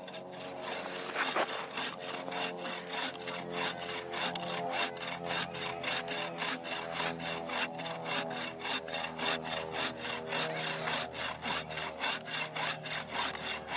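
Hand pruning saw cutting through the trunk of a live fir Christmas tree near the ground, in quick, even rasping strokes, about four a second. The saw is cutting easily.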